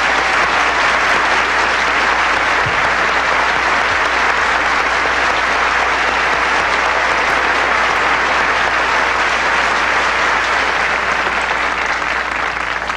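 Large banquet audience applauding steadily, tapering off near the end.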